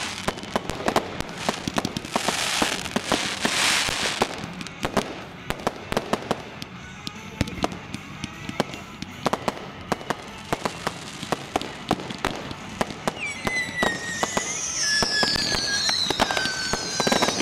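A firework display: a rapid run of sharp bangs and crackles from shells and mines, with a hissing rush lasting about two seconds a couple of seconds in. From about three-quarters of the way through, several whistling fireworks join in, their high whistles gliding downward.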